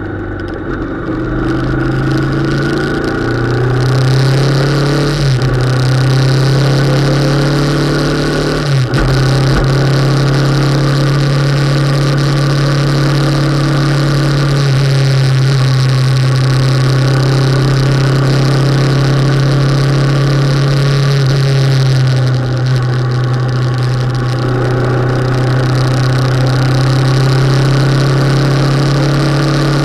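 Motorcycle engine running at road speed, heard from the bike itself, with wind noise over it. The engine note climbs in the first few seconds and dips sharply twice, about five and nine seconds in. It eases off a little past twenty seconds and then picks up again.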